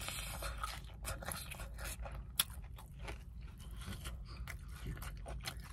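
A person biting into crispy fried chicken and chewing it: many small crackles from the breaded crust, with one sharper crunch a little under halfway through.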